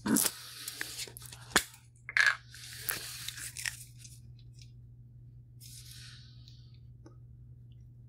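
Handling noises: a few sharp clicks and knocks with some rustling, as an aerosol can of CRC contact cleaner is readied by hand. A faint steady hum runs underneath.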